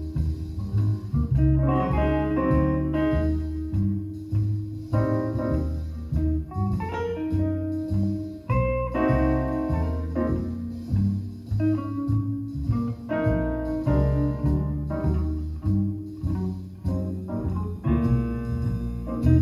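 Guitar music with a bass line, played back through a pair of large floor-standing FC coaxial loudspeakers: a steady run of plucked notes over deep bass notes.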